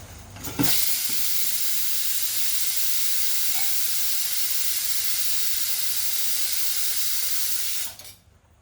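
Steady loud steam hiss from water poured into a hot pan of frying dal and green chillies. It cuts off abruptly near the end.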